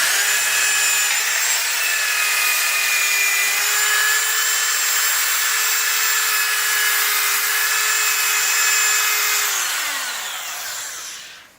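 Electric wire brush scouring rust off a wheelbarrow's steel frame: a steady motor whine under a loud scratchy hiss. Near the end the tool is switched off and winds down, its pitch falling.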